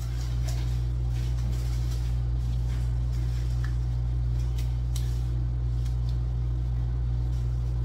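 A steady low hum, with faint crinkling and light ticks of surgical gloves being pulled on over it.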